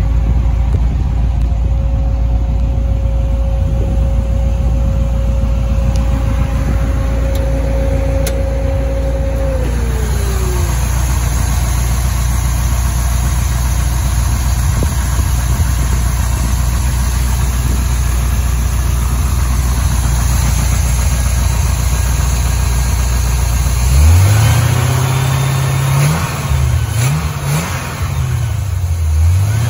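Carbureted engine of a modified 1941 vehicle idling steadily, then revved several times from about three-quarters of the way through, the pitch rising and falling with each blip of the throttle linkage. A steady whine over the idle drops in pitch and stops about ten seconds in.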